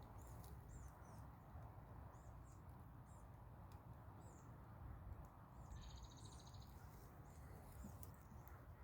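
Faint outdoor ambience of small wild creatures: scattered short, high chirps and one rapid, buzzy trill lasting about a second, starting about six seconds in, over a steady low rumble.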